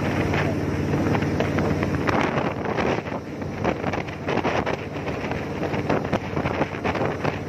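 Jet boat's engine running steadily under way, with wind buffeting the microphone in gusts.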